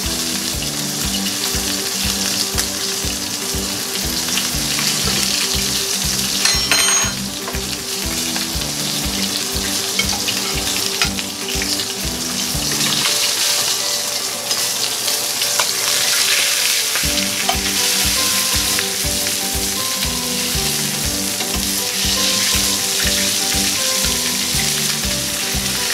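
Chicken breast searing fat side down in hot oil in a skillet: a steady sizzle and crackle of frying. Background music with a steady beat plays underneath.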